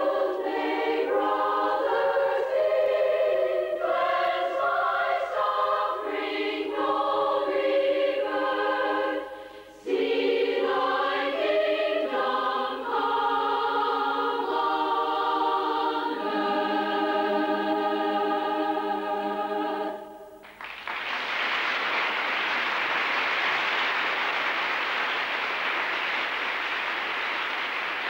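Women's choir singing a cappella in close harmony, arrangements for a wordless vocal orchestra. It ends on a long held chord, and right after that applause breaks out and carries on.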